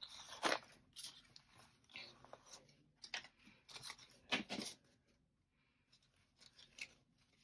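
Paper bills and cash envelopes being handled: faint, scattered rustles and crinkles, with a short pause about five seconds in.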